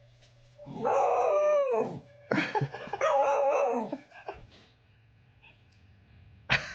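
A dog howling twice, two long wavering calls of about a second and a half each, in the back-talking way of a grumbling dog.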